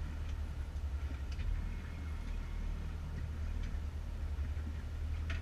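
Boat's outboard motor running at idle: a steady low hum, with a few faint ticks over it.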